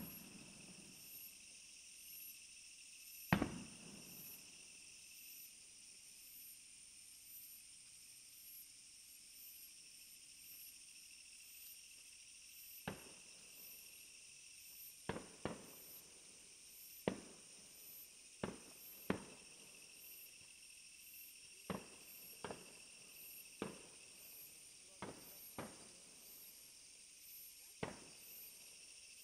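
Fireworks going off: one loud bang with a trailing echo about three seconds in, a lull, then an uneven run of about a dozen sharp bangs from about thirteen seconds on, some in quick pairs. Under them, insects chirp steadily, with a high pulsing chirp repeating evenly.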